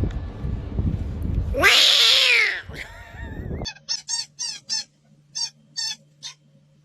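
A cat's loud, drawn-out meow that falls in pitch at its end, over a low background rumble, followed by a shorter cry. Then comes a run of about eight short, high-pitched squeaky cries.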